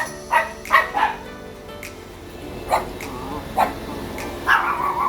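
A dog barking, short sharp barks several times with a longer bark near the end, over background music.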